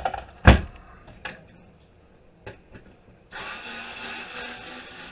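A loud clunk about half a second in and a few light clicks of parts being handled, then a small electric motor runs steadily for about two seconds near the end.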